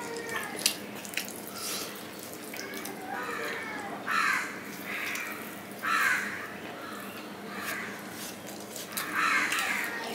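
Eating rice and curry by hand from a steel plate: fingers squishing and mixing the rice, with chewing and mouth sounds, scattered small clicks, and three louder bursts about two to three seconds apart.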